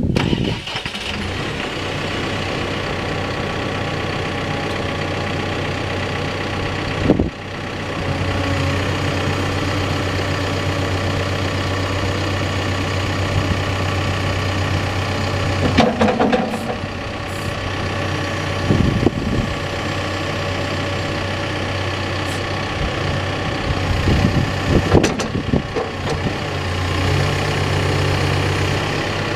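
Backhoe's diesel engine running just after start-up, with a steady drone that picks up slightly after a brief change about seven seconds in. Several short knocks and clunks come later on.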